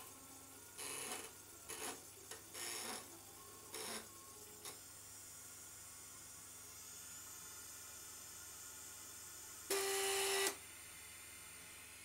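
Stepper motors of a salvaged printer mechanism, run by a TB6560 stepper driver, moving the carriage in short bursts: several brief moves in the first five seconds, then one louder move with a steady whine near the end.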